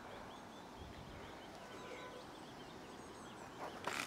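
Small birds chirping faintly over quiet outdoor ambience, with one brief bump near the end.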